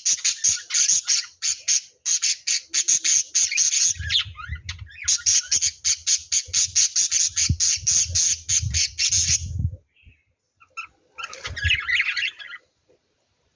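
Lovebirds chattering in rapid, harsh, high-pitched squawks at about six a second, with low thumping under the calls in their second half. The calls stop about ten seconds in, and a short burst of calls comes near the end.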